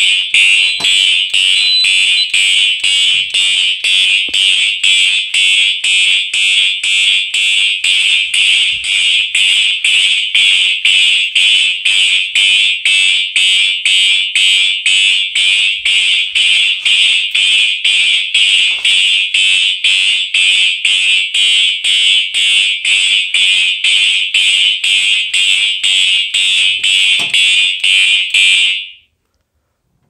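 Fire alarm horns sounding in march-time code, a loud, evenly pulsed tone at about two pulses a second, the temporal pattern signalling a smoke detector alarm on the system. The horns cut off suddenly near the end.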